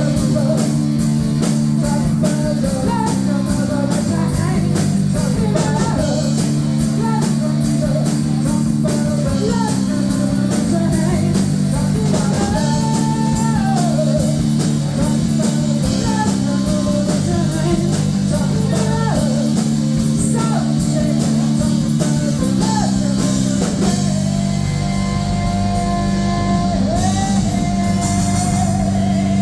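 Rock song: a singer over guitar and drums with a steady beat, ending on a long held note.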